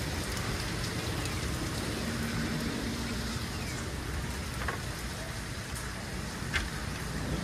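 Steady rain falling on pavement and leaves, an even hiss with a few sharp drips ticking, one near the end.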